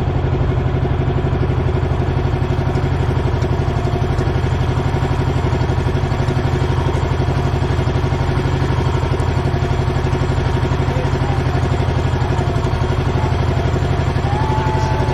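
Outrigger boat (bangka) engine running steadily under way, a fast, even pulsing drone.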